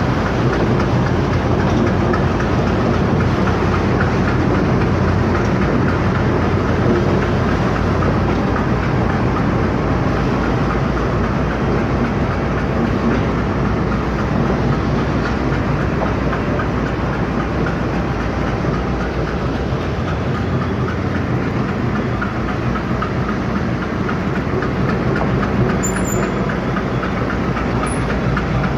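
Train running on the rails, a loud, steady rumble of wheels and cars that goes on without a break.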